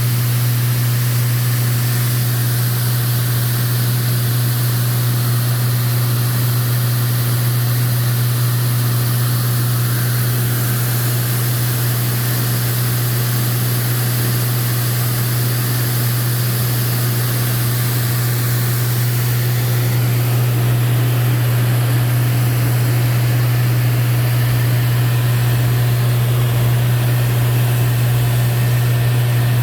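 In-flight cabin noise of a Lancair IV-P single-engine piston aircraft: the engine and propeller run steadily with a strong low hum, under a constant rushing hiss of airflow.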